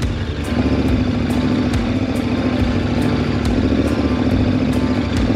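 KTM 1190 Adventure's V-twin engine running at a steady pitch under load as the motorcycle ploughs through deep, soft, powdery sand.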